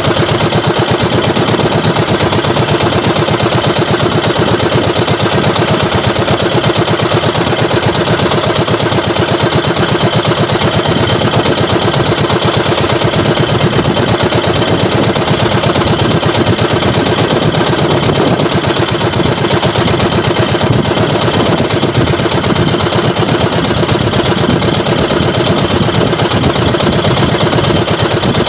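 Small engine of a motorized outrigger fishing boat running steadily at an even, low speed, with a fast regular chug of firing pulses.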